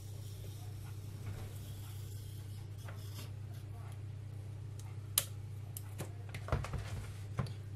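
Knife trimming the spiny edges off an aloe vera leaf: faint irregular cutting clicks and scrapes, with a sharp click about five seconds in and a dull thump shortly after. A steady low hum sits underneath.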